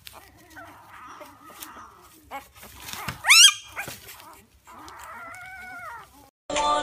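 A young puppy whimpering: one loud, sharp yelp that rises in pitch a little over three seconds in, then a longer, steadier whine near the end.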